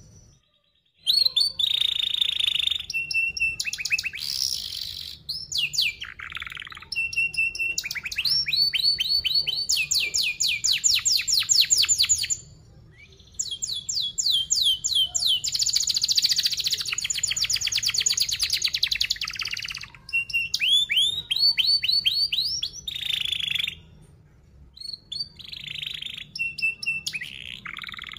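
Domestic canary singing a fast, dense song of repeated chirps and rapid rolling trills, in long phrases broken by short pauses.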